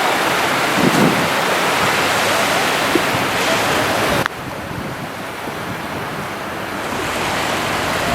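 Surf washing onto a sandy beach, with wind buffeting the microphone. The noise drops suddenly about four seconds in, losing its hiss, then slowly builds again.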